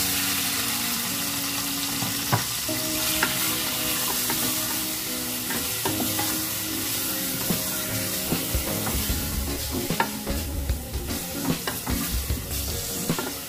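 Chicken breast pieces frying in hot oil with ginger in an aluminium pot: a steady sizzle that starts suddenly as the chicken drops in, with a wooden spoon stirring and knocking against the pot now and then.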